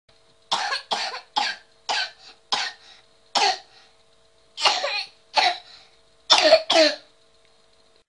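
A young boy's bark-like cough: about ten coughs in quick runs, the barking cough of croup in a child who also has bronchitis.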